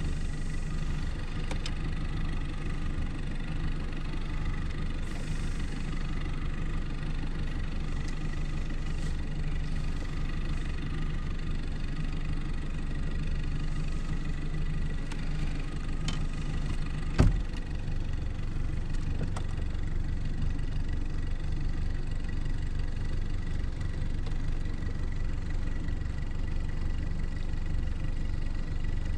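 An engine running steadily at idle, a low hum with a thin high whine over it. A single sharp knock comes about 17 seconds in, after which the hum settles a little lower.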